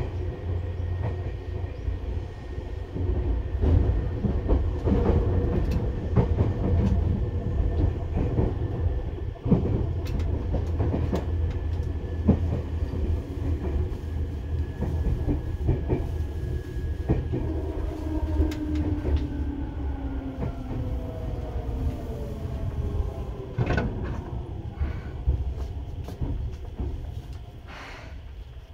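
Seibu 2000 series electric train running, heard from inside the car: a steady low rumble with repeated wheel clacks over the rails. Its humming tones slide down in pitch about two-thirds of the way through as the train slows, and the sound grows quieter near the end.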